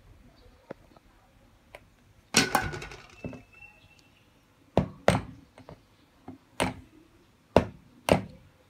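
Metal cake pan of batter knocked down repeatedly on a wooden board, tapped to settle the batter and even its top. A quick cluster of knocks comes about two and a half seconds in, then single knocks about a second apart.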